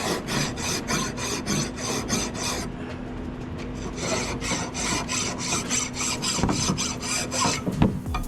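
Hand file rasping back and forth on metal, about three strokes a second, cleaning the pad-clip seats of a rear brake caliper bracket. The strokes pause briefly about three seconds in, then resume, with a sharp knock near the end.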